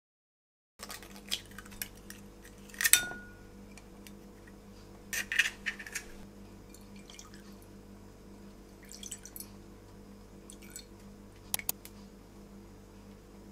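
An egg cracked open over a glass food container, then scattered sharp taps and clinks of shell, glass and a bottle, over a steady low hum.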